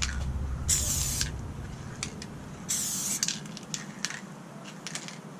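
Montana Hardcore spray paint can fitted with a wide "pink" fat cap, spraying two short hissing bursts of about half a second each, two seconds apart. A few light clicks follow.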